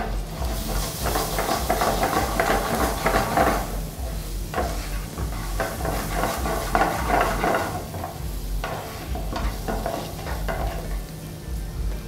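Soaked urad dal sizzling in hot ghee in a pan while a spatula stirs and scrapes it, the stirring swelling in three spells.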